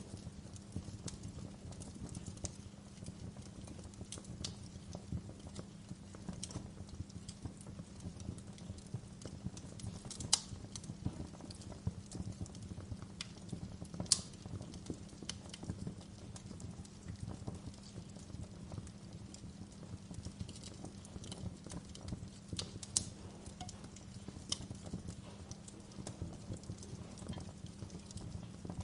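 Wood fire burning in a fireplace: a steady low rumble under constant small crackles, with a few sharper pops about ten, fourteen and twenty-three seconds in.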